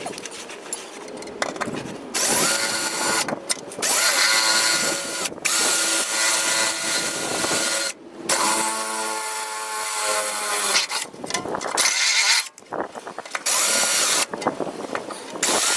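Cordless drill boring through a metal underbody shield. It runs in several bursts, its whine rising as the motor spins up and falling as it stops, with short pauses between.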